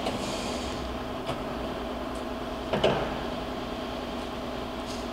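Victor 1640B engine lathe running at low speed, a steady mechanical hum with a short clunk near the middle.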